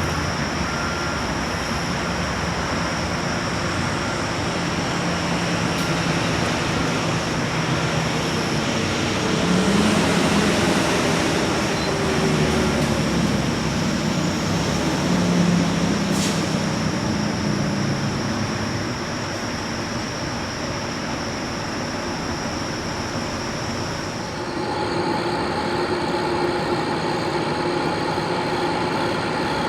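Loud, steady mechanical background noise with a constant high-pitched tone; about 24 seconds in the high tone stops and a set of steady lower hums takes over.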